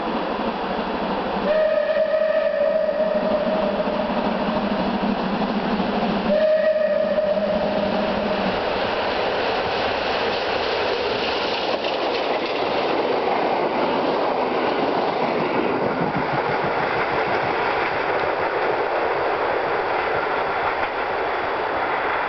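Steam locomotive Pm36-2 sounds its whistle in two long blasts, the first about three seconds and the second about two, as it approaches. It then rushes past hauling its passenger carriages, a loud steady roar of exhaust steam and wheels on the rails with clattering over the rail joints.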